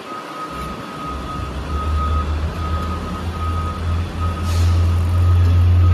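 A heavy vehicle's engine running with a deep hum that grows louder through the second half. Over it, a repeating high-pitched reversing beeper sounds, and there is a brief hiss about four and a half seconds in.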